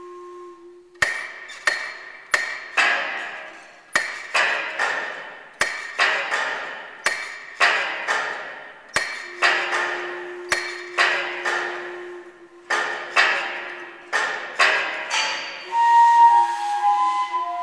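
Mechanical hammers of the organ-driven installation striking the building's fixtures about twice a second in an uneven rhythm, each blow ringing out. A held low tone sounds at the start and again midway, and near the end whistle-like pitched tones from the building's pipes take over.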